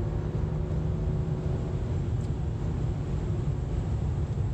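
2007 BMW 525xi (E60, all-wheel drive) on the move: a steady low drivetrain and road rumble with a faint tone above it. It carries a noise that follows road speed rather than engine speed, which the owner suspects is an early-failing CV axle.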